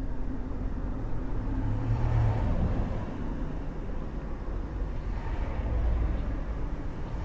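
Low, steady rumble of road traffic, swelling twice as vehicles pass, about two seconds in and again around five to six seconds in.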